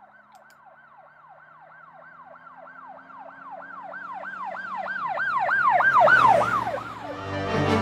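Police siren in a fast up-and-down yelp, about three sweeps a second, growing steadily louder as if approaching. Music comes in near the end.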